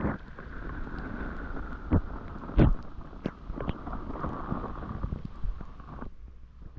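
Wind rumbling on the microphone over a steady scraping hiss of a ride sliding down snow; the hiss stops about six seconds in. Two loud thumps come about two seconds and two and a half seconds in.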